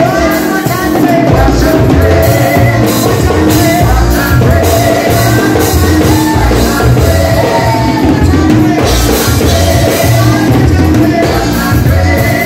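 Live gospel praise music played loud through PA speakers: a drum kit keeps a steady beat under heavy bass while several singers sing into microphones.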